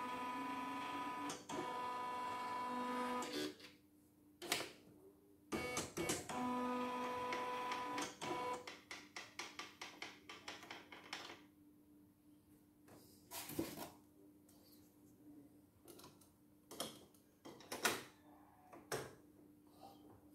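CNY computerized embroidery machine running with a steady motor whine, stopping about three and a half seconds in, then running again for about three seconds. After that come scattered clicks and taps as the machine is handled, over a faint steady hum.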